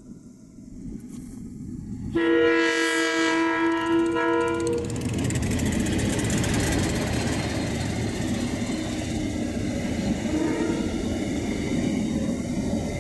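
Diesel locomotive's multi-note horn sounding once, about two seconds in, for roughly two and a half seconds. The locomotive and its passenger carriages then run close past with a steady loud rumble of engine and wheels on the rails.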